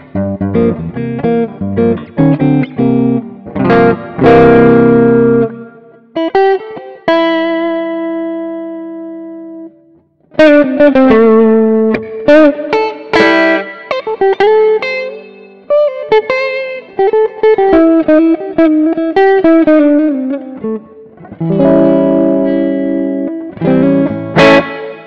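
Electric guitar played through a Mooer GE200 amp-modelling multi-effects unit with a clean to lightly crunchy tone. It opens with strummed chords, then a few long ringing notes die away, and about ten seconds in a single-note melody with bent notes starts, ending in more chords near the end.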